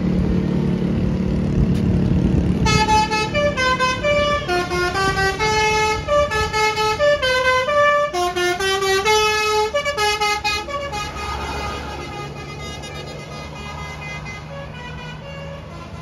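Tour bus's telolet musical horn playing a quick tune of stepped notes for about eight seconds as the coach drives past. The bus engine's low rumble is loudest at the start and carries on, quieter, after the tune stops.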